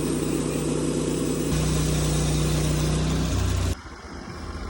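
Sawmill engine running steadily, shifting pitch twice, then the loud running cuts off suddenly near the end, leaving a quieter low engine hum.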